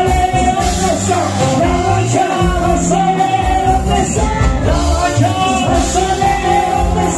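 Live band music: a man and a woman singing into microphones through a loudspeaker system, over guitar, bass and a steady beat.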